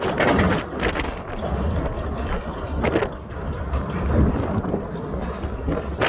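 Wind buffeting the microphone over a steady low rumble, with a few sharp knocks.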